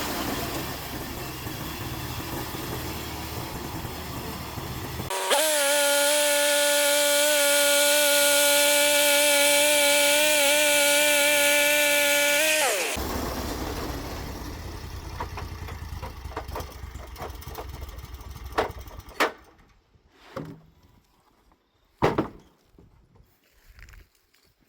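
Norwood LumberMate 2000 portable band sawmill: the engine runs steadily, then a loud steady whine with a strong hiss sets in for about eight seconds as the band blade cuts through a log, stopping abruptly. The sound then dies away, and a few sharp knocks follow near the end.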